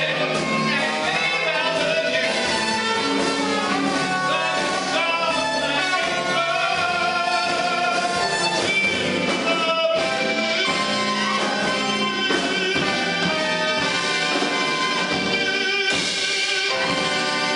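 A man singing into a microphone with instrumental accompaniment.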